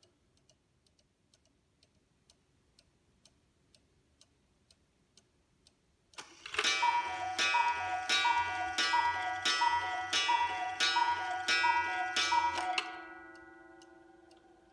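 Mechanical Black Forest cuckoo clock ticking faintly, then about six seconds in it calls the hour. A run of two-note cuckoo calls, high then low, comes about every 0.6 s, each with a gong strike, and the ringing fades away over the last two seconds.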